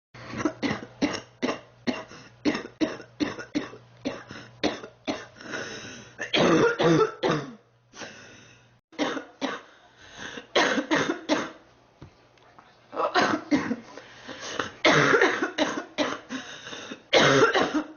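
A girl coughing in long runs of short, sharp coughs, about three a second. Denser, harsher fits come around six seconds in and again in the last few seconds, and there are two brief pauses.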